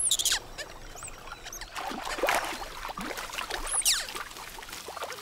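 Water splashing and pouring as toque macaques dive and swim for lily flowers, with a few short, high-pitched calls that drop in pitch.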